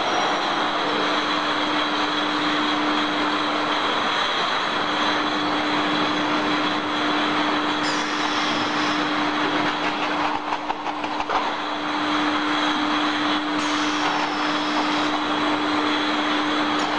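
Steady industrial machinery noise with a constant hum from an autoclave's automatic tray-loading equipment as it moves trays of glass bottles. A short spell of rattling clicks comes about ten seconds in.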